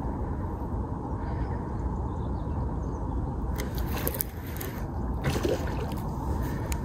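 Baitcasting reel being cranked to bring in a hooked fish, with water sloshing as the fish is drawn in, over a steady low rumble. A few sharp clicks sound about halfway through and near the end.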